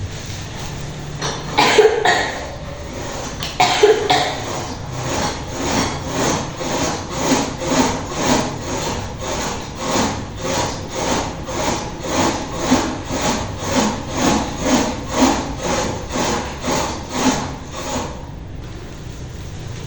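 Manual hospital bed being cranked to raise its backrest into a sitting position: a regular scraping or ratcheting, about two strokes a second for some fourteen seconds, after two louder noises near the start.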